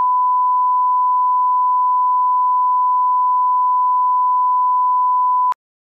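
Broadcast test tone of the kind played with TV colour bars: one loud, unbroken beep held at a single pitch, cutting off abruptly near the end.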